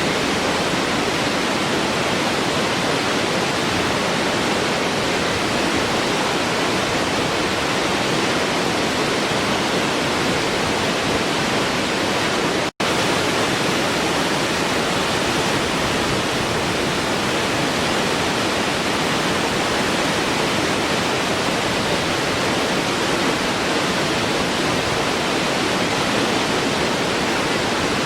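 Waterfall rushing in a steady, even roar of falling water, cutting out for an instant about halfway through.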